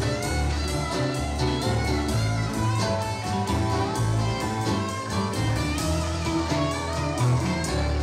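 Live blues band playing: electric guitars over bass guitar and drum kit, with a steady beat.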